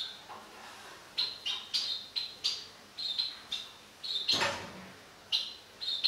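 Small cage finches chirping: a string of short, high chirps, about two a second, with one louder, harsher sound about four seconds in.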